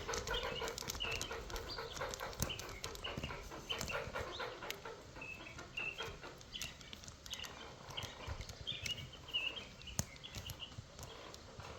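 Pet birds chirping and chattering in short calls throughout, with a few sharp light clicks scattered among them.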